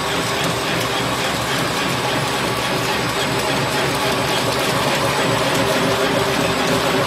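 One-colour printing single paper straw wrapping machine running at speed: a steady, dense mechanical clatter of fast ticks over a steady hum.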